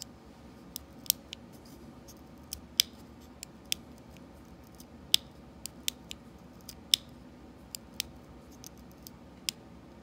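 Small irregular clicks and snaps of a 3D-printed nylon gate latch's printed-in-place hinge as its hook is worked back and forth by hand, the pivot freshly broken free. A few of the clicks are much sharper than the rest.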